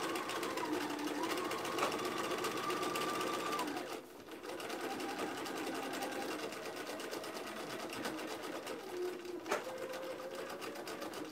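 Electric domestic sewing machine running, stitching at an even rapid rate with a steady motor whine. It eases off briefly about four seconds in, then runs on, with a single sharp click near the end.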